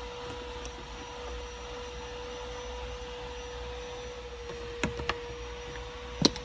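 A steady background hum with a constant mid-pitched tone runs throughout. Over it come a few small clicks from handling the plastic hinge end cap and coil spring of a BMW E46 centre-console armrest: two close together about five seconds in, and a sharper one near the end.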